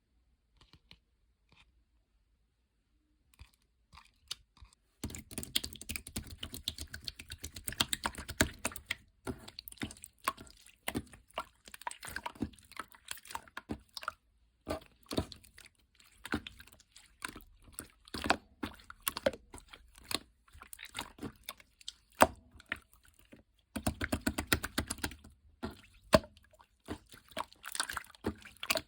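Slime being squeezed and pressed by hand, giving dense crunchy crackling and clicking that starts about five seconds in, with a few short pauses.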